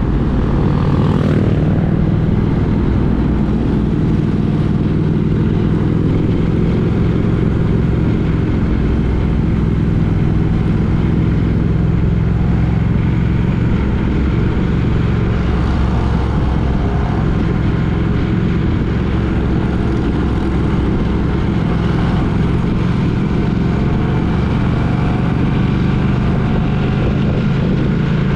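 Triumph Speed Twin 900's parallel-twin engine running steadily at an even cruising speed, with a rush of wind and road noise.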